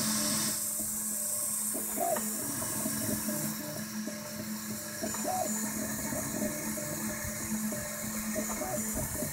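Ultimaker 2 3D printer running a normal print: its stepper motors whir in short tones that keep changing pitch as the print head moves back and forth, over a steady hum and hiss from its cooling fans.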